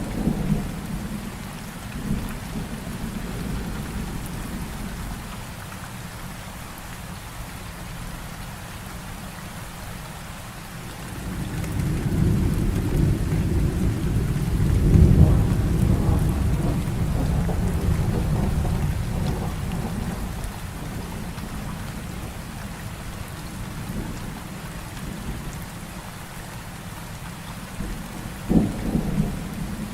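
Heavy rain falling steadily through a thunderstorm. A long, deep roll of thunder builds about a third of the way in, peaks near the middle and fades, with shorter, sharper thunder claps at the very start and again near the end.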